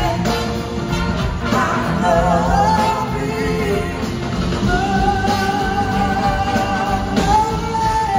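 Live blues-rock band playing: a woman's lead vocal over electric guitars and drums, with one long held sung note from about five seconds in.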